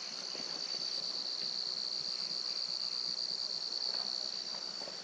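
Steady, high-pitched insect chorus: an even, unbroken trill that holds one pitch.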